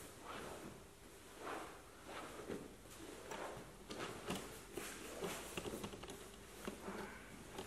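Faint rustling of a cotton jiu-jitsu gi and a body scuffing and sliding on the training mats as a grappler shrimps sideways, in irregular scuffs about once a second.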